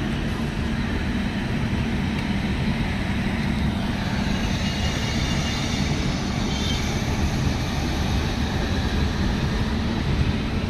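Pushpak Express passenger coach running on the track: a steady rumble of wheels on rails.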